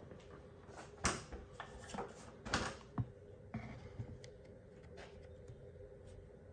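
A few scattered knocks and clicks, the loudest about a second in and again around two and a half seconds in, over a faint steady hum.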